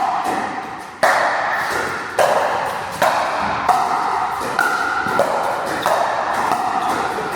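Pickleball paddles striking the ball in a rally, a sharp pop about once a second, each ringing on in a large room. Music plays under the hits.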